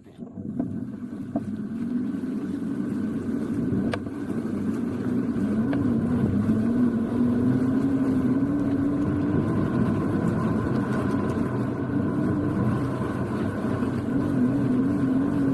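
Tronic Roadrunner electric mini-bike being ridden: a motor whine that wavers up and down in pitch over a steady rush of wind and road noise, starting abruptly.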